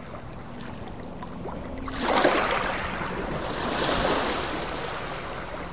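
A rushing noise like surf, which swells about two seconds in and again near four seconds, then eases off.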